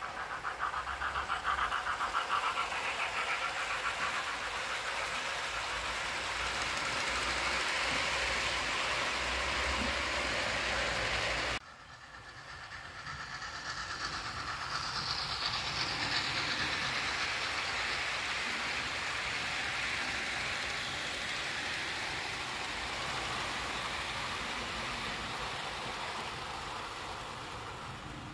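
OO-scale model trains running along outdoor track, a steady noise of wheels on the rails. It breaks off abruptly about 12 s in, then a second pass builds up again and fades slowly near the end.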